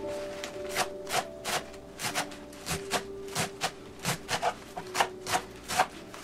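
Kitchen knife chopping a bunch of chives on a wooden cutting board: sharp knocks of the blade hitting the board, about two or three a second, unevenly spaced.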